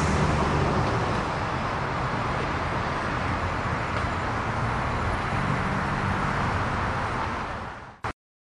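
Street traffic noise: a steady wash of passing cars with a low engine hum. It fades and cuts off abruptly about eight seconds in.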